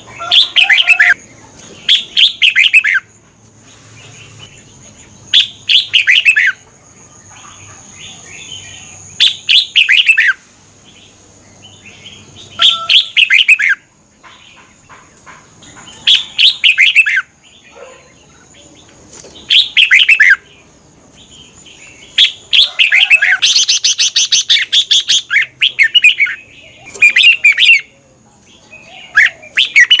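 Red-whiskered bulbul singing: short song phrases of about a second each, repeated every three to four seconds, with one longer, busier run of notes near the end.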